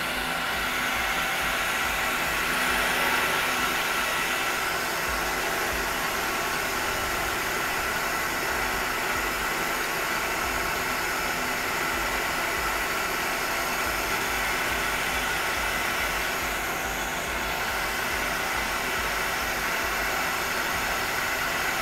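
Steady hum and hiss of a Mazak CNC lathe with live tooling running a circle-milling program, with no cutting sounds heard.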